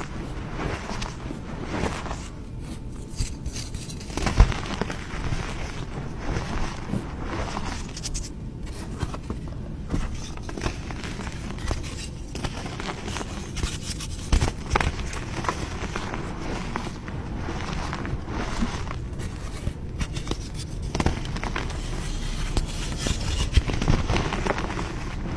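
Blocks of gym chalk being crushed and crumbled: an irregular run of dry crunches and crackles, with a sharp loud snap about four seconds in.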